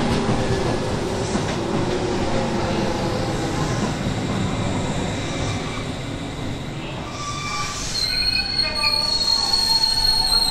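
A train running on rails, with steady rumbling of wheels and track. About three-quarters of the way through, a high metallic squeal of several steady tones sets in and holds.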